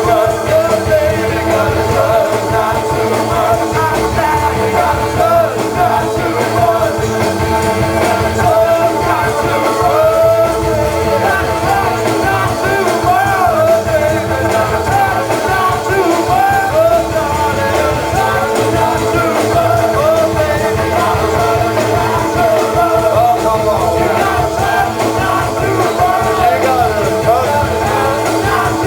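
Loud rock music with singing, a full band playing steadily throughout.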